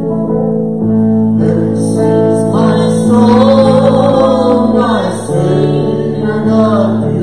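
Live gospel band playing a slow hymn: guitars hold sustained chords under a sung melody that swells in the middle.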